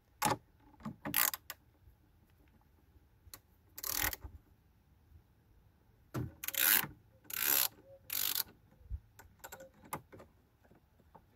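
Ratchet handle with a 10 mm socket clicking in several short bursts, with pauses between, as the nut on a car battery's negative terminal clamp is undone.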